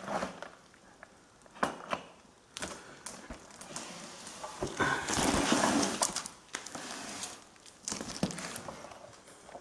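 Cardboard box being handled: rustling and scraping, with a couple of sharp clicks early, a longer stretch of rustling about halfway through and another near the end.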